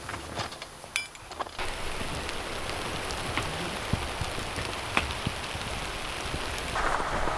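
Blizzard: wind-driven snow hitting tent fabric, a steady hiss with scattered ticks that sets in about a second and a half in and grows louder near the end.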